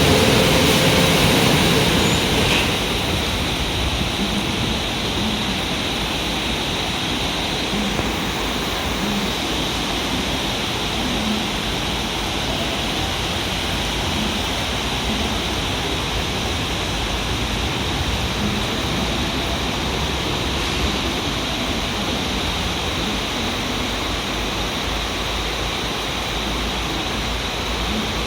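Steady rushing noise from a JR train. A louder hiss in the first two and a half seconds drops away, and the noise then settles to an even level.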